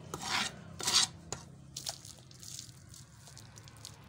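A knife scraping and cutting through a fish on a wooden chopping block, with wet scraping sounds: two short scrapes in the first second, the second one louder, then a few faint clicks.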